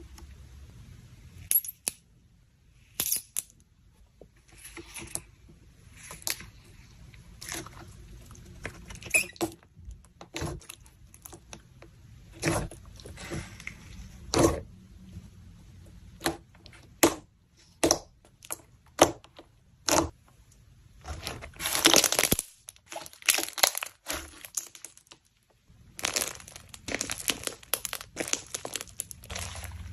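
Repeated sharp crackles and crunches, with stretches of dense crinkling about 21 to 23 seconds in and again over the last four seconds.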